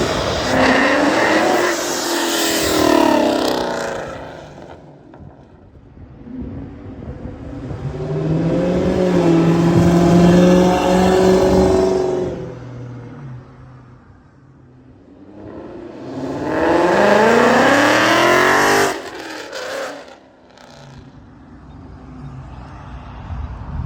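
Modified Ford Mustang V8 exhaust being revved three times, with lower running in between. The middle rev is held high for a few seconds, and the last one climbs, then cuts off sharply.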